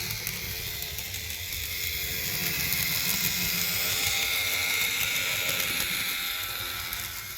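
Roco BR 290 (V90) model diesel locomotive running along the track with a loud, steady high-pitched motor whine over a low rumble, growing louder towards the middle and fading near the end. The noise is a known fault on this model, which the owner takes for the motor itself working rather than the gears.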